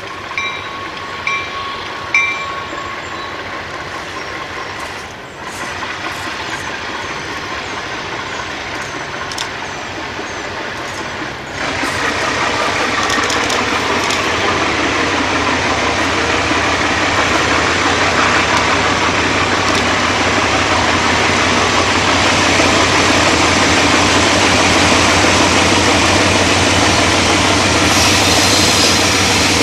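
Alco RS-18u diesel locomotive with a V12 engine, approaching. Its engine is throttled up suddenly about a third of the way in, and its running grows steadily louder as it comes closer.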